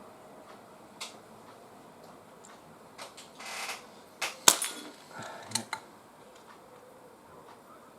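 Crosman 2300T CO2 pistol firing a single sharp shot a little past halfway, surrounded by quieter clicks and knocks.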